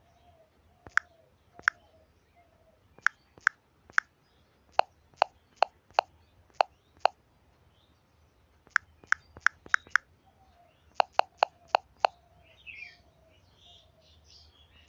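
Redmi smartphone on-screen keyboard key-press sounds: sharp clicks at an irregular typing pace, in short runs of three to six with pauses between.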